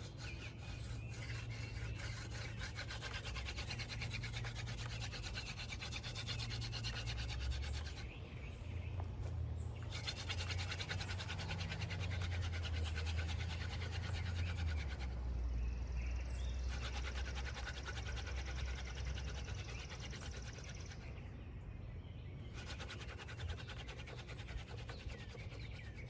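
Hand drill friction fire: a Dogfennel spindle spun rapidly back and forth between the palms, its tip grinding into the divot of a Water Oak fireboard during the burn-in. A steady scraping comes in long runs, broken by short pauses about 8, 15 and 21 seconds in as the hands go back to the top of the spindle.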